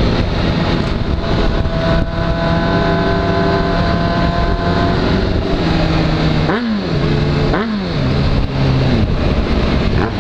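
Honda CBR sport-bike engine running steadily at cruising speed from the rider's seat, with wind rush. About two-thirds in, the revs rise sharply and drop twice in quick succession, then settle lower as the throttle eases off near the end.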